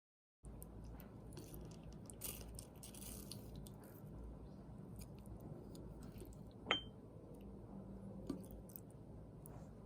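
Quiet eating sounds: soft chewing and small clicks, with a utensil clinking sharply against a dish about two thirds of the way through and more lightly a moment later.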